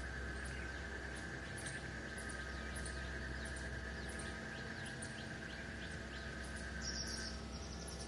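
Birds chirping outdoors, short high calls repeating about twice a second, over a steady high drone that stops about seven seconds in.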